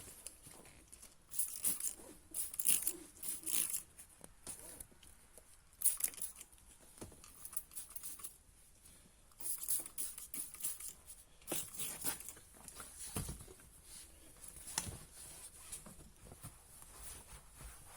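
Cloth rubbing along seatbelt webbing, wiping a polymer coating onto it: irregular runs of rustling strokes, with a single soft knock about 13 seconds in.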